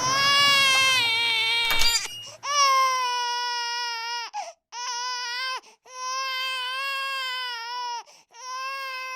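A crying voice, like an infant's, in five long, even wails, each dropping in pitch as it trails off, with short breaks between them.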